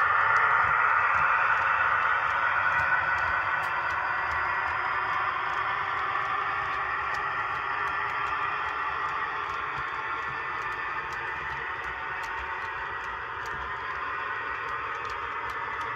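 Model train running along layout track: a steady whirring hiss of motor and wheels with faint ticks, slowly fading as the train moves away.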